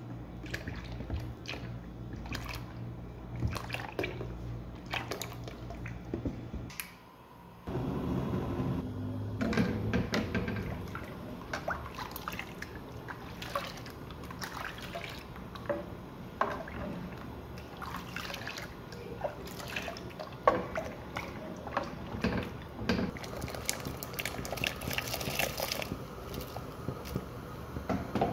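Milk being stirred in a pan: liquid swishing with scattered light clicks of the utensil against the pan.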